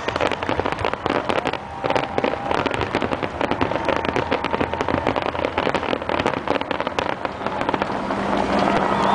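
Fireworks barrage: many shells bursting close together, a dense, rapid crackle of sharp reports.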